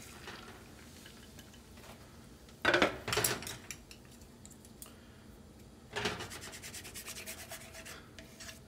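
Wooden chopsticks stirring beaten egg quickly in a nonstick frying pan, a rapid run of scraping strokes against the pan starting about six seconds in. A brief clatter comes about three seconds in.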